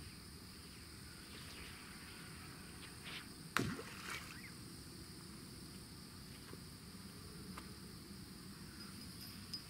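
Faint, steady chirring of insects such as crickets, with one sharp knock about three and a half seconds in.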